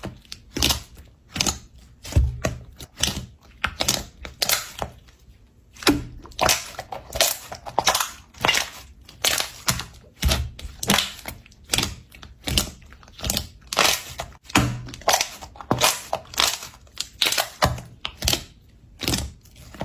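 Slime being pressed and squeezed, making a long irregular string of short sharp pops and crackles, about one or two a second, some louder than others.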